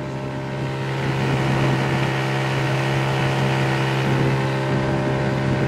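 A small boat's outboard motor running at a steady pitch, getting louder about a second in as the boat gets under way.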